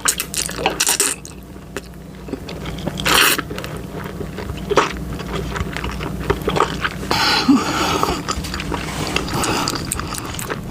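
Close-miked chewing and biting of a big mouthful of food, with scattered clicks and short scraping sounds.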